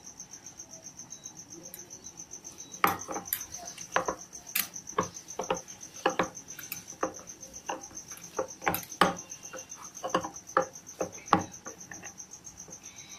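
Hands kneading mashed sweet potato dough in a stainless steel bowl: irregular taps and knocks against the metal bowl, starting about three seconds in. A cricket chirps steadily and high-pitched in the background throughout.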